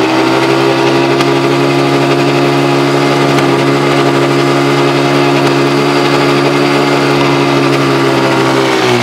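Small ATV's engine running at steady, held revs as the quad circles on loose dirt, the note even throughout and dropping off right at the end.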